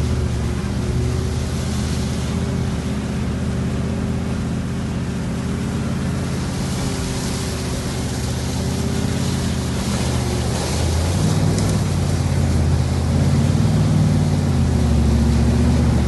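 Toyota Land Cruiser 79's 4.5-litre V8 turbodiesel running under load as it drives through a flooded stream, with water sloshing and splashing against the vehicle. About two-thirds of the way through, the engine note deepens and grows louder as it pushes a bow wave into deeper water.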